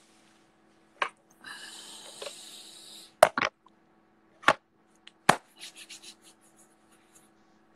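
Sharp hand claps close to a phone's microphone: a double clap about three seconds in, then single claps about a second apart. A stretch of hissing rustle comes before them, and a faint steady hum runs underneath.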